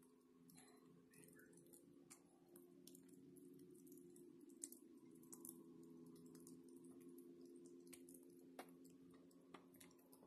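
Near silence: a faint, steady low hum with occasional soft clicks from the phone being handled.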